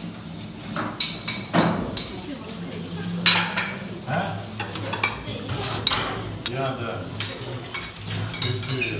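Dishes being washed by hand in a stainless-steel sink: plates and bowls clink and knock against each other and the sink under a running tap, over a steady low hum.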